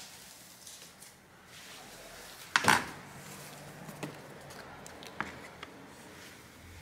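Handling of a loose plastic phone back cover on a work mat: one sharp knock about two and a half seconds in, then a few faint taps and rubbing.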